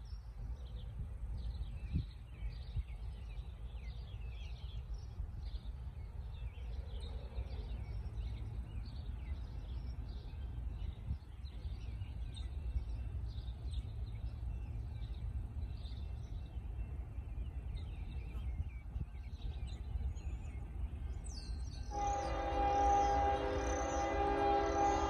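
Birds chirping over a low rumble, then about three seconds before the end a locomotive's Nathan K5HL five-chime air horn starts blowing: a loud, steady chord of several notes, held on.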